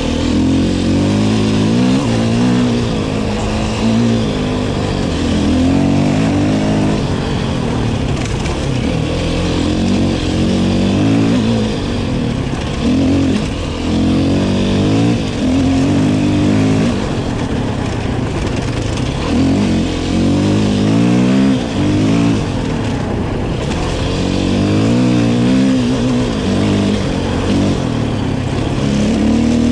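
KTM 450 EXC-F single-cylinder four-stroke enduro motorcycle engine accelerating hard, its pitch rising and falling over and over through throttle blips and gear changes.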